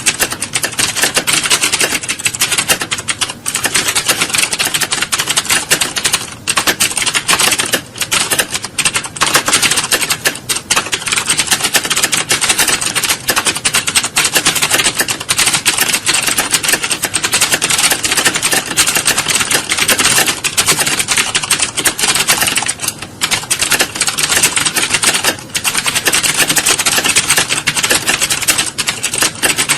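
Fast, continuous typing on computer keyboards: a dense clatter of keystrokes, briefly thinning a few times.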